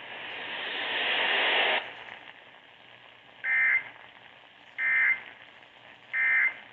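Radio hiss rising for about two seconds and cutting off suddenly, then three short, evenly spaced bursts of buzzy warbling data tone: the Emergency Alert System end-of-message code, heard through an FM radio.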